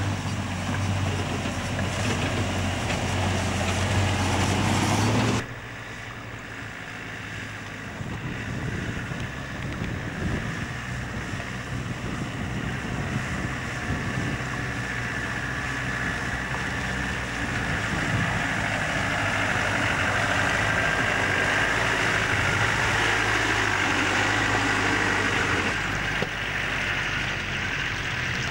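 Land Rover engines driving off-road along a muddy track: a steady low engine drone that rises slightly, then changes abruptly about five seconds in to lighter engine and tyre noise with a higher whine that swells later.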